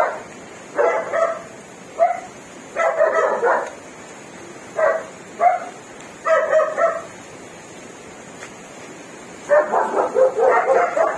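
A dog barking and yipping in short, irregular bursts, with a longer run of barks near the end.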